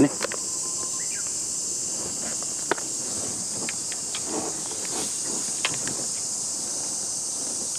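Steady high-pitched chorus of summer insects, with a few light clicks, the sharpest nearly three seconds in.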